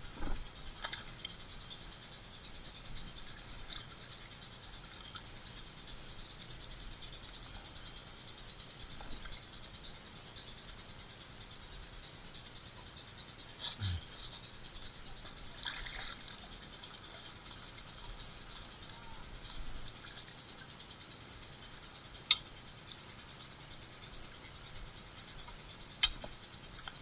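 Faint, sparse handling sounds of a person working in pond mud with wire-framed landing nets: small rattles and clicks, a soft low thud about halfway through, and two sharp clicks near the end.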